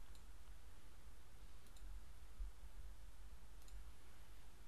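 A few faint computer mouse clicks, about three spaced a second or two apart, over a faint low hum.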